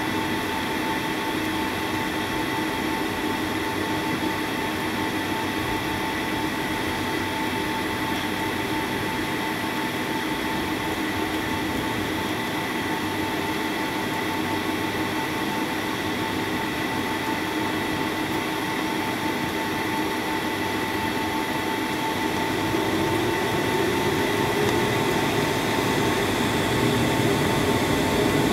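Jet airliner engines and airflow heard from inside the passenger cabin while taxiing: a steady hum with several fixed whining tones. About three-quarters of the way through, the engine note rises and grows louder as thrust increases.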